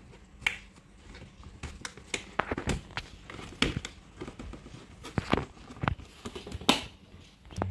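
Hard plastic panels of a folding shoe box clicking and knocking as they are handled and fitted together: an irregular run of sharp clicks, the loudest one near the end.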